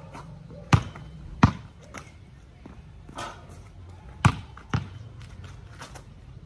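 Basketball bouncing on a concrete court: four sharp thuds in two pairs, one pair about a second in and another about four and a half seconds in.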